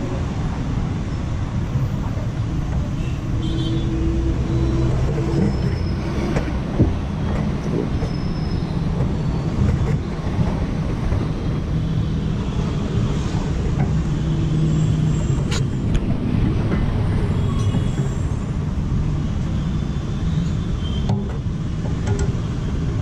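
Steady road traffic rumble with a few light metallic clicks, including one about 7 seconds in and one about 16 seconds in, as a timing gear is handled and fitted onto its shaft.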